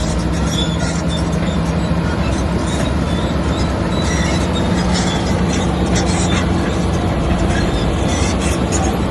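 Komatsu crawler bulldozer working: diesel engine running steadily under load with its steel tracks clanking.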